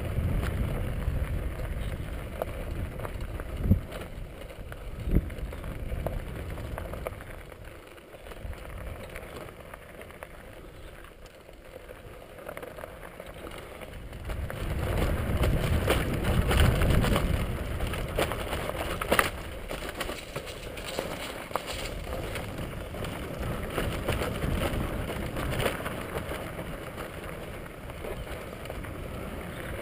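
Bicycle riding over loose dark gravel: tyre crunch and bike rattle with wind rumbling on the helmet microphone, quieter for a while in the middle and louder again in the second half, with a few sharp knocks.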